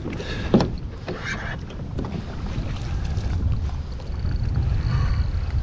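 Water splashing beside a kayak as a hooked snook thrashes at the landing net, over a steady low rumble of wind on the microphone; a sharp hit about half a second in.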